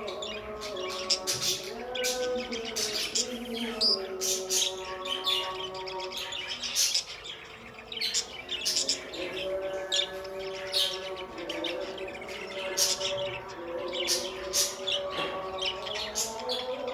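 Budgerigars chirping in many quick, sharp calls throughout, over background music of held tones that step from note to note.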